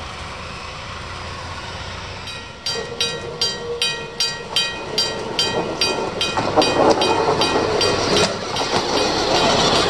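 A bell rings in regular strikes, about three a second, starting a little over two seconds in. From about six seconds in, an approaching diesel railcar's engine and wheels grow louder under the ringing.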